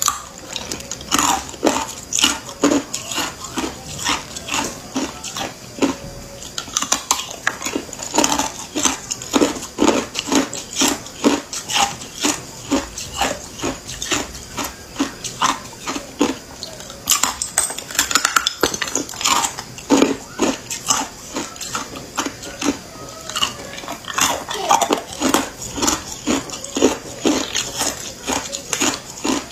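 Hard clear ice cubes being crunched between the teeth: a continuous run of sharp cracks and crunches, several a second.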